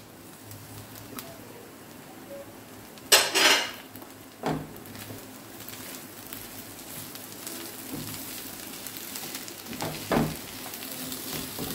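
Spatula stirring and scraping mashed potato filling in a frying pan over the flame, with a faint sizzle. One brief loud clatter comes about three seconds in, and a few lighter knocks of the spatula on the pan follow.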